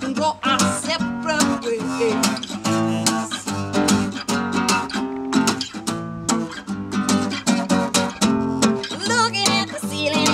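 Acoustic guitar strummed in a steady rhythm, with a woman singing over it in places.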